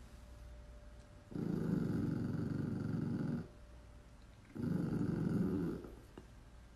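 Small chihuahua-type dog growling with bared teeth, in two long low growls: the first about a second in, lasting about two seconds, the second starting about halfway through and lasting over a second.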